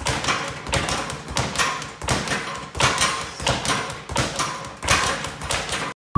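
Speed bag being punched: a fast, steady rattle of the bag rebounding off its platform, which cuts off suddenly near the end.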